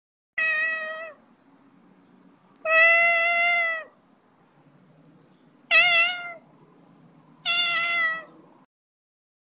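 Siamese cat meowing four times. The calls are about a second long each, the third one shorter.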